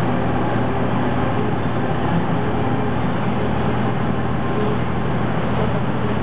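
Steady engine and road noise of a vehicle driving, with a constant low hum under it.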